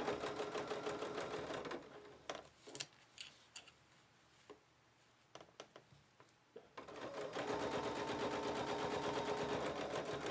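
Bernina domestic sewing machine stitching at a fast, even rate as it quilts a line with a ruler foot, then stopping about two seconds in. A few light clicks and taps follow, then the machine starts up again at about seven seconds and runs steadily.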